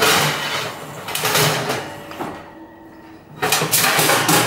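Water from a refrigerator's door dispenser running into a glass. Near the end it is poured from the glass into a foil-lined oven tray, splashing.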